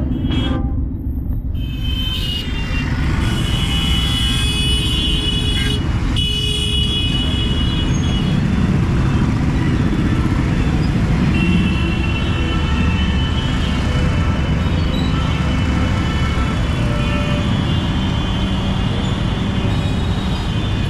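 Heavy street traffic heard from a two-wheeler in a crowded intersection: a steady rumble of motorcycle, scooter, car and auto-rickshaw engines, with vehicle horns honking repeatedly, most from about a third of the way in.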